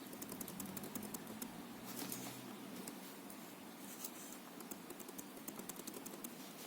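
Faint, irregular light clicks and taps, several a second, over a low background hiss.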